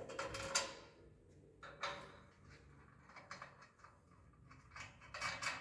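Light handling clicks and knocks as a blue plastic fitting is worked onto the end of a white steel sewing-machine stand rail, with a louder stretch of scraping and rubbing near the end.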